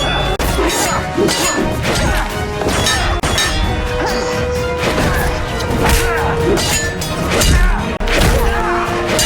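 Fight-scene sound effects: a rapid string of hard blows, hits and crashes over dramatic background music.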